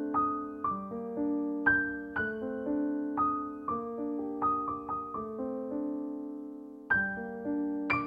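Background piano music: unhurried single notes and chords, each struck and left to ring and fade. The sound dies away near 6 seconds in, then a new chord is struck about a second later.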